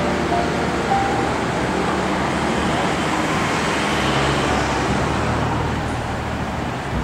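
Steady road traffic noise: a constant wash of cars passing.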